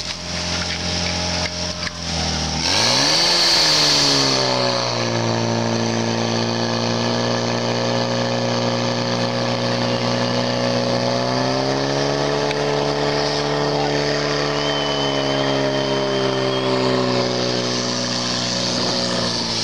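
Portable fire pump's engine running at low speed, then revving up sharply about two and a half seconds in, with a hissing rush for a couple of seconds, and holding steady at high revs while it pumps water into the hose lines.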